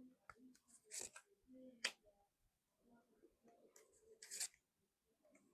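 Faint swishes and flicks of tarot cards being shuffled and drawn: short ones about a second in and near two seconds, and a longer one past four seconds.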